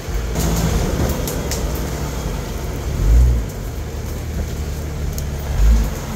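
Jeep Wrangler engine running at low revs while crawling over a rough trail, a steady low rumble that swells briefly twice as the throttle is blipped. Scattered sharp crackles come in the first second or two.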